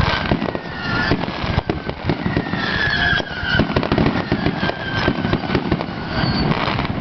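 Fireworks display: a dense, rapid barrage of firework bangs and crackles, many going off in quick succession with hardly a break.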